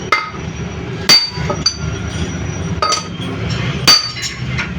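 Ringing metal-on-metal hammer strikes driving valve seats into a diesel cylinder head, about five unevenly spaced blows, the loudest about a second in and near the four-second mark. A steady low hum runs underneath.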